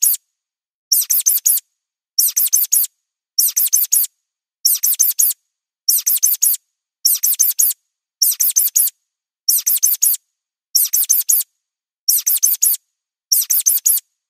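Looped mouse-squeak sound effect: a burst of four or five quick, high-pitched squeaks repeating about every second and a quarter, with silence between bursts.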